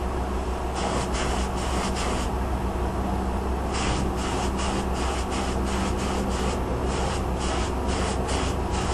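Harbor Freight air paint spray gun hissing in repeated short bursts as the trigger is pulled and released: a cluster about a second in, then a longer run of many bursts from about four seconds in. A steady low hum runs under it. The paint, which the painter thinks is thinned too far, is spraying out heavily.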